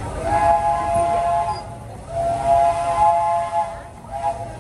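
Steam locomotive whistle on the Disneyland Railroad train sounding a chord of notes: two long blasts and then a short one near the end. This is the opening of the long-long-short-long grade-crossing signal.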